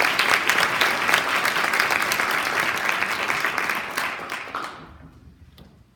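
Audience applauding in a gymnasium or hall, a dense spread of clapping that fades away about four to five seconds in.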